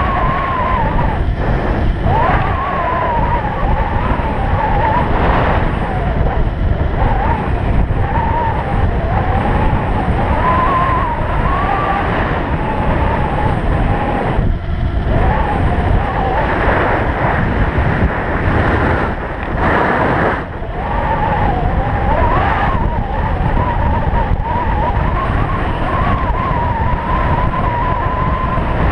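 Heavy wind rush on the microphone at riding speed, with a wavering high whine from the Stealth Bomber electric bike's hub motor drifting up and down with speed and briefly dropping out a couple of times.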